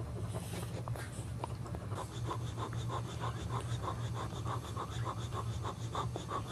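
Quick rhythmic breathing from a boxer dog, about three breaths a second, starting about two seconds in. Before it come small irregular clicks from newborn boxer puppies suckling, and a steady low hum runs underneath throughout.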